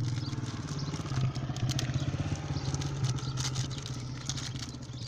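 A small engine running steadily, with a few light clicks.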